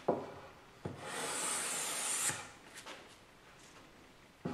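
Wooden-bodied hand planes handled on a wooden table: a few sharp knocks of wood on wood and a sliding rub lasting about a second and a half.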